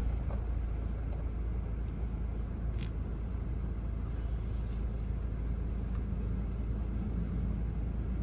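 Steady low engine rumble heard from inside a vehicle's cab, with no change in pitch or level.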